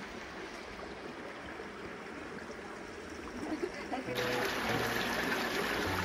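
Shallow mountain stream running over rocks, a steady rush of water. About four seconds in, background music with held notes comes in abruptly over it.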